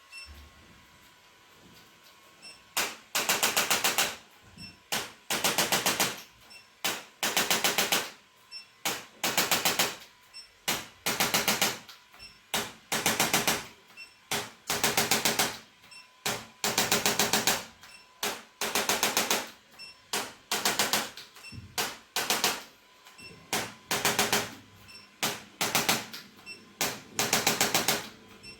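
Rapid mechanical tapping in short bursts, each about half a second to a second long, repeating every one to two seconds from about three seconds in.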